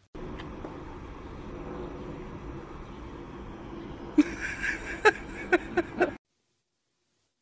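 Steady outdoor background noise, with a series of short, sharp sounds about four to six seconds in, before the audio cuts off suddenly.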